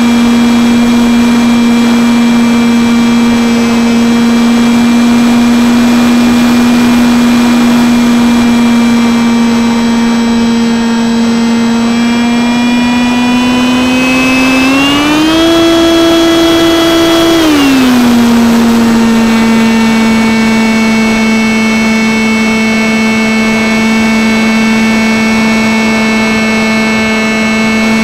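Electric motor and propeller of a Stryker RC flying wing, heard from a camera mounted on the plane in flight: a loud, steady whine. About halfway through it rises in pitch, holds for about two seconds, then falls back to its earlier note.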